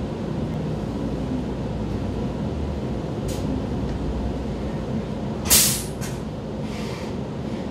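Vienna U-Bahn train standing at a station, its car giving a steady low rumble, with a short sharp hiss of air about five and a half seconds in and fainter brief hisses just before and after it.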